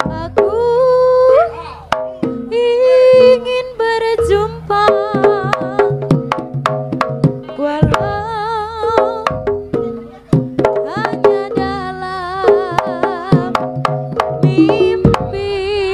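Live East Javanese jaranan gamelan music: frequent sharp kendang drum strokes and sustained metal gong-chime tones, under a wavering lead melody with heavy vibrato.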